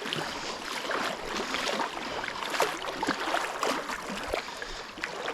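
Water splashing and sloshing in a creek, a run of small irregular splashes, as of someone wading or swimming through it.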